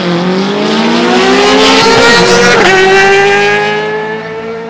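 A vehicle accelerating hard, its engine pitch climbing, then dropping suddenly at a gear change a little past halfway and climbing again as it fades away near the end.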